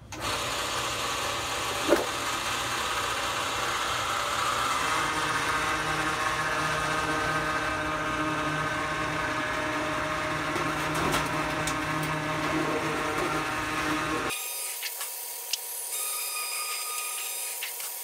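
Lockformer roll-forming machine running as a sheet of duct metal feeds through its five roller stations to form a Pittsburgh lock along the edge: a steady mechanical whir with a single knock about two seconds in. Near the end the deeper part of the sound drops away, leaving a thinner, quieter whine.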